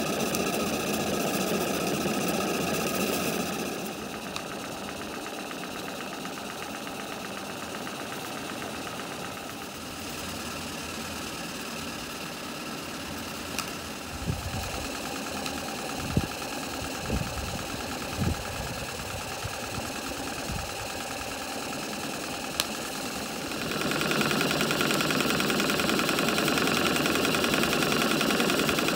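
Maxitrak 1-inch scale model Burrell traction engine running under steam, its cylinder, crosshead and valve gear working with a fast, even mechanical beat. A few low knocks come in the middle, and the sound grows louder near the end.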